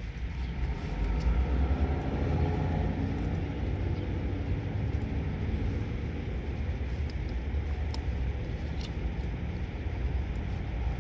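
Low, steady rumble of road traffic that swells about a second in and then holds, with a few faint clicks near the end.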